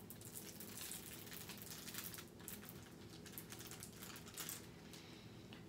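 The clear plastic top sheet covering a diamond painting canvas crinkles as hands lift and smooth it, giving a quiet run of irregular crackles.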